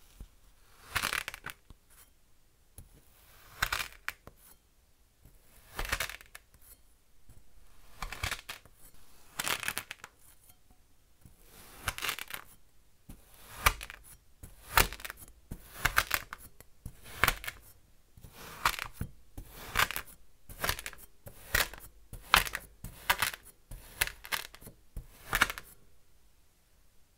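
Kinetic sand crunching as a round metal cutter is pushed down into a flattened slab, each push a short gritty crunch. The crunches come about every two seconds at first, then about once a second from midway on.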